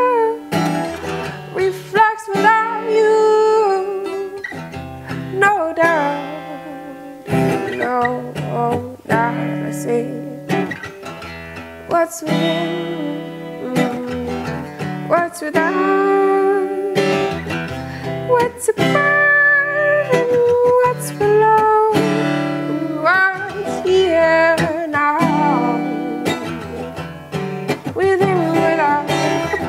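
A woman singing an improvised soul melody over a steel-string acoustic guitar that is strummed and picked alongside her, her voice sliding and bending between notes.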